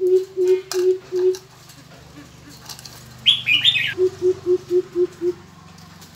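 Greater coucal giving its deep hooting call: a run of evenly spaced low hoots, about four a second, that stops about a second and a half in, then a second run of six hoots starting about four seconds in. A brief higher chirping call comes between the two runs.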